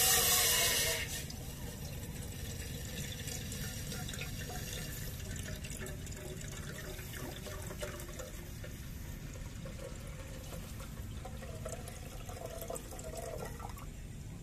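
Water poured from a glass bottle into an empty stainless steel gooseneck kettle: a loud splash on the metal bottom at the start, then a steady, quieter trickle with a faint ringing tone as the kettle fills.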